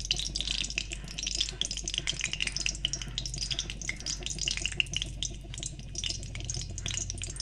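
Raisins and charoli seeds frying in hot ghee in a steel kadhai: a steady crackling sizzle of many small pops, with a steady low hum underneath.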